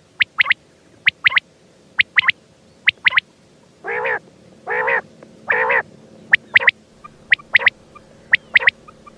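Quail calling: short, sharp, high notes, mostly in quick pairs, repeated about once a second. About four seconds in come three longer, lower, buzzier notes.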